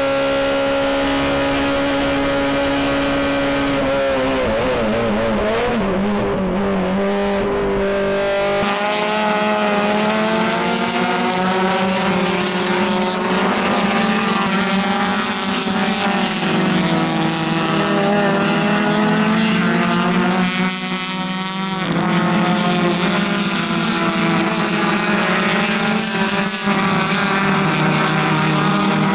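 Racing touring-car engines. First heard from inside the cockpit, one engine holding a steady high note. Then, after several seconds, several cars are heard from trackside, their engine notes rising and falling as they accelerate and shift through a corner.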